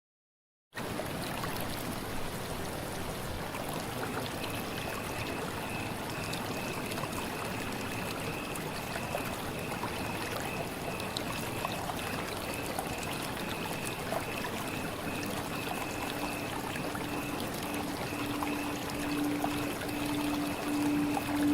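Steady running water, like a trickling stream, coming in about a second in after a brief silence. Faint pulsing musical tones join it in the second half and grow louder toward the end.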